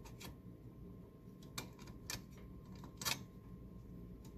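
A few light clicks and taps of metal Royal P typewriter parts being handled and fitted during reassembly, the loudest about three seconds in, over a faint steady hum.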